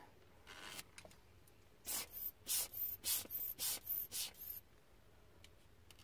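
Rubber hand air-blower bulb squeezed repeatedly, each squeeze a short hissing puff of air blowing dust out of an opened laptop's insides. One soft puff comes about half a second in, then a quick run of about seven puffs starts about two seconds in and lasts some three seconds.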